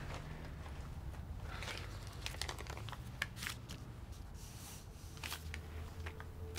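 Paper rustling and crinkling in short, irregular rustles as a paper slip is handled and slid across a counter, over a low steady room hum.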